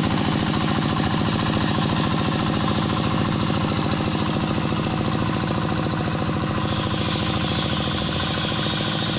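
Two-wheel hand tractor's single-cylinder diesel engine running steadily with a fast, even beat as it works through the flooded paddy mud.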